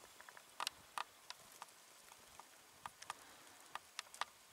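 Faint, irregular ticks and clicks, a dozen or so scattered through, over a low hiss.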